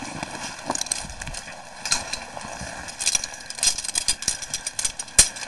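A caver's boots and gear on rock along a fixed rope: irregular clicks, knocks and scrapes, bunching into quick clatters about two, three and four seconds in.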